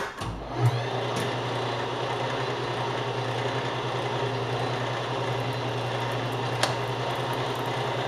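Metal lathe switched on with a sharp clack, its spindle and chuck coming up to speed within the first second and then running steadily with an even mechanical hum. A single short tick about six and a half seconds in.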